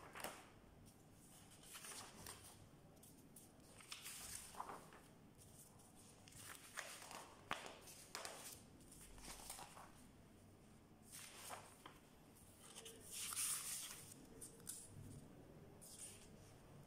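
Sheets of paper being handled and turned over: faint, scattered rustles and flicks, with a longer, louder rustle about thirteen seconds in.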